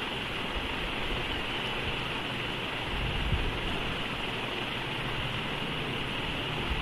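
Steady background hiss, strongest in the upper midrange, with a soft low bump about three seconds in.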